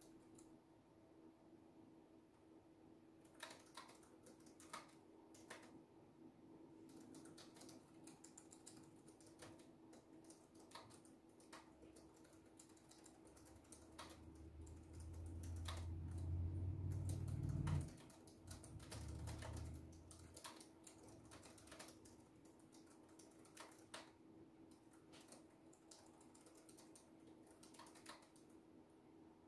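Typing on a computer keyboard, in quick runs with short pauses. About halfway through, a louder low rumble swells and cuts off suddenly, followed by a shorter, weaker one.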